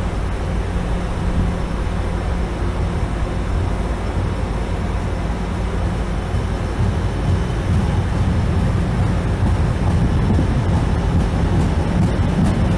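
Red San Diego Trolley light-rail cars running close by: a steady low hum, with a louder low rumble building from about halfway through as the cars come nearer.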